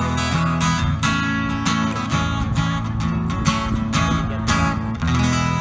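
Acoustic guitar strummed in a steady rhythm, an instrumental passage without vocals.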